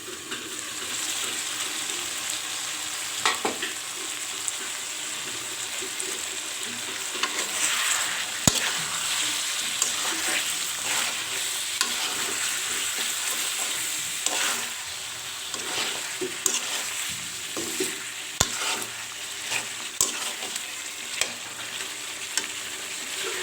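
Chicken and potatoes sizzling steadily in spiced oil in a pot while being stirred with a spatula, with irregular scrapes and knocks of the spatula against the pot. This is the kosha stage of a chicken curry, the meat being fried down in its masala near the end of that stage.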